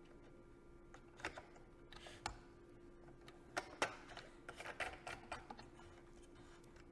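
Scattered light plastic clicks and taps of the inspiratory and expiratory ports being screwed by hand onto an anaesthesia machine's breathing block, over a faint steady hum.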